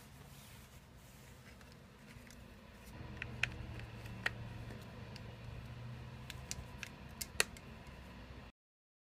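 Hands handling a SoundSOUL aroma diffuser's plastic base while its power cord is pressed into the groove underneath: faint rubbing with a handful of sharp plastic clicks in the second half. The sound cuts off to silence near the end.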